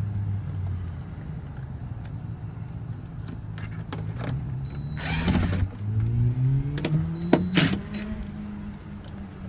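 A low hum that slowly rises in pitch over several seconds, with a loud scraping rustle about five seconds in and a few sharp clicks near the end, as a speaker is worked out of a truck door.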